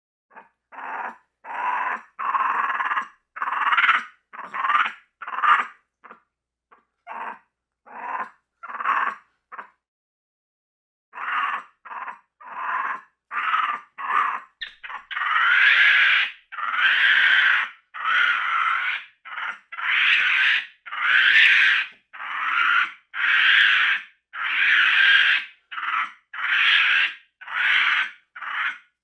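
Capuchin monkey calling in a long series of short calls, with a pause of about a second and a half a third of the way in. After that the calls grow louder and longer, coming about once a second.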